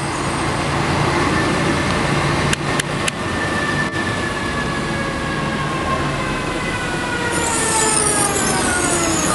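Open-top bus running through town streets, heard from the upper deck with the engine and a rushing noise of wind on the microphone. A whine falls steadily in pitch over several seconds as the bus slows, and there are three quick clicks about two and a half seconds in.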